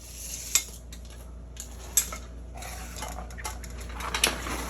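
Small loose metal parts and hand tools clinking and clattering as they are handled at the wheel hub, with three sharp clinks amid scraping and rustling.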